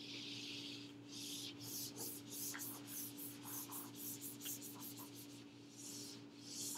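Felt eraser wiping a whiteboard clean in a quick run of short back-and-forth strokes, each a soft hiss.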